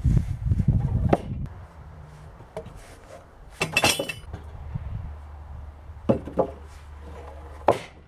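Freshly sawn spruce boards knocking and clattering against one another as they are handled and stacked. There is a low rumble in the first second or so, a cluster of knocks about halfway through, a few more near the end and one last sharp knock.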